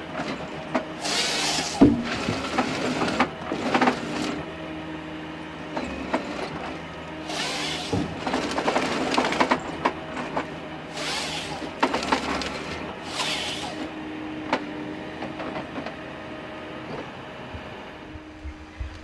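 A forestry harvester with a Log Max harvesting head at work: the machine's engine and hydraulics run steadily, with several short bursts of harsh noise as the head saws and delimbs logs.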